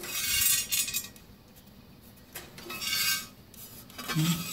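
Cutting drum of a DK2 Power OPC506 wood chipper turned slowly by hand, with loose metal inside clinking and rattling in three short bursts. The owner suspects stray bits of metal inside the drum left from poor welding.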